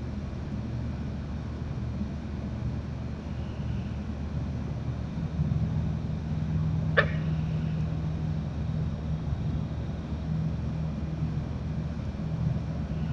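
A steady low drone with no clear source, growing a little stronger and steadier about five seconds in. A single sharp click or snap sounds about seven seconds in.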